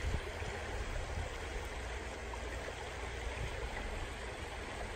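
A small, fast-flowing creek running steadily.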